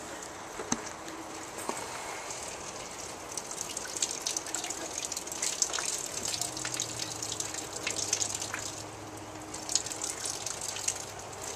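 Rain falling steadily, with many small drops ticking and dripping close by.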